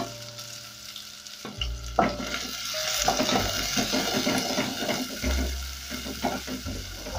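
Sliced red onions sizzling in hot cooking oil in an aluminium pot, with a spoon scraping against the pot as they are stirred. The stirring starts about two seconds in and goes on in quick strokes.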